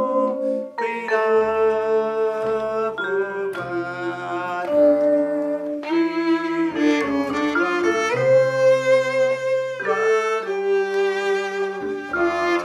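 Small acoustic ensemble playing: a violin carries the melody with vibrato over a double bass line. A vibraphone chord rings at the start.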